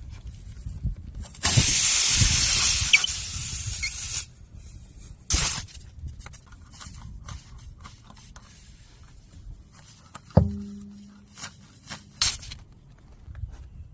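Pressurised air hissing for about three seconds, then two short hisses later on. A single sharp knock with a brief ringing tone comes about ten seconds in.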